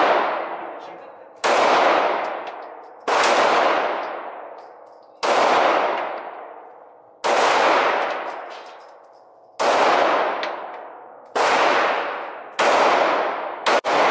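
Handgun shots fired one at a time in an indoor range, about eight of them spaced roughly every one and a half to two and a half seconds. Each sharp report is followed by a long echo that fades before the next shot.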